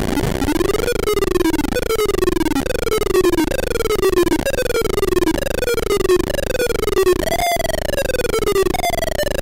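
PC speaker beeping a rapid run of electronic tones from a quicksort visualizer, the pitch following the values of the bars being sorted. After a short rise at the start, the tones keep sweeping downward in glides of about a second each, each glide restarting at a higher pitch.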